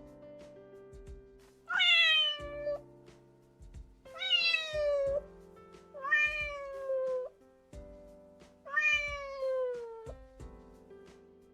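A high-pitched female voice sneezing four times, about two seconds apart: allergic sneezes, each a sudden cry that slides down in pitch. Background music plays underneath.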